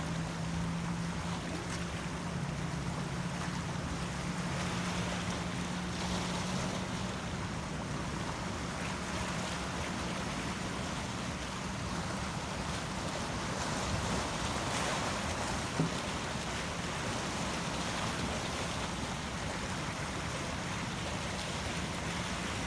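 Ocean waves washing in steady surf noise, with a low steady hum under it that is strongest in the first several seconds and a single brief knock about sixteen seconds in.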